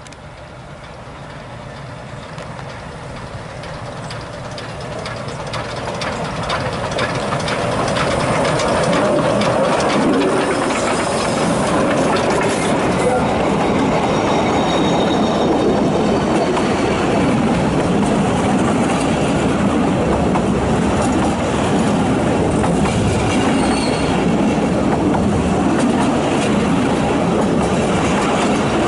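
Narrow-gauge steam train approaching and passing close by. The sound builds steadily over the first eight seconds or so, then the carriages roll past with a loud, steady clatter of wheels over the rail joints.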